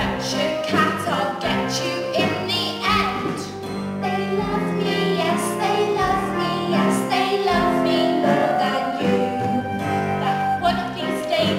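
Theatre song: singing voices, female or children's, over instrumental accompaniment.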